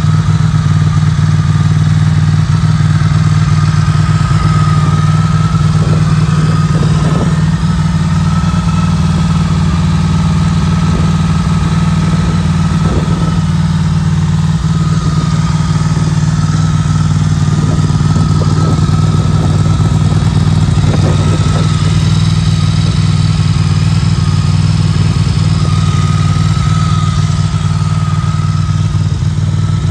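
2004 Ducati 800 SS's air-cooled L-twin engine idling steadily on a test run.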